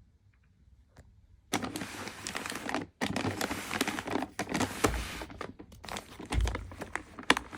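Crinkling and rustling of a firework cake's plastic wrapping and cardboard being handled, starting about a second and a half in, with a couple of dull thuds.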